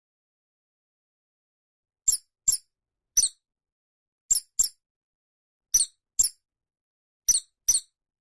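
A small animal's high-pitched squeaks, very short and mostly in pairs, starting about two seconds in and repeating nine times.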